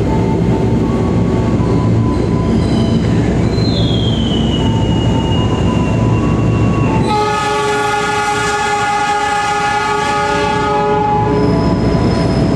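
A diesel passenger locomotive runs with a steady low rumble as the train moves slowly through the station, and a wheel squeal glides down in pitch about four seconds in. About seven seconds in, the locomotive sounds one long horn blast of about four seconds. Thin, high wheel squeals start near the end.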